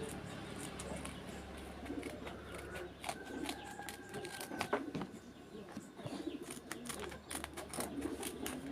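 Scissors snipping and cutting through paper in a run of short clicks that come more often in the second half, with a bird cooing faintly every few seconds.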